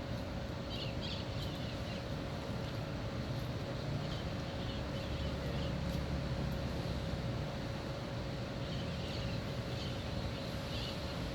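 Waterfront dawn ambience: a steady low rumble that swells a little midway, with short bird chirps over it several times.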